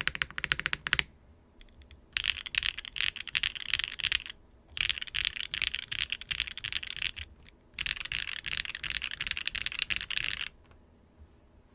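Mechanical keyboard with WingTree YuYing linear switches on a carbon fiber plate, no foam, typed on very fast. The keys clack in dense runs: three long bursts of rapid keystrokes with short pauses between them, stopping shortly before the end.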